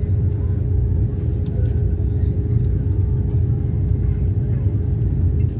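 Airliner cabin noise: a steady low rumble of engines and airflow with a constant hum running through it.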